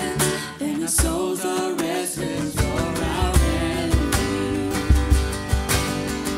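Church worship band playing a song: a sung vocal over guitar, with a steady drum beat.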